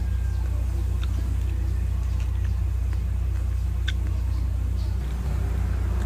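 A steady low rumble, with a few faint clicks about one, two and four seconds in.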